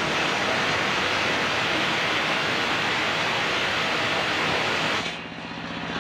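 Large circular saw blade ripping lengthwise through a coconut-palm (glugu) log, a loud, steady hiss of cutting. About five seconds in the cut ends and the hiss drops away, leaving the belt-driven stationary engine that powers the saw running steadily.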